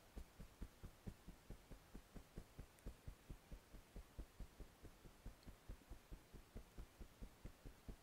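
Fingertips tapping rapidly on the side of the body under the arm (the EFT underarm point) through clothing: faint, soft thumps in a steady rhythm of about five a second.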